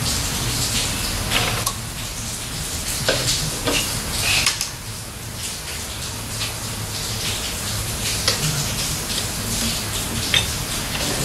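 Tire-shop work sounds: hissing air with scattered clicks and clanks of metal tools and parts over a steady low machine hum.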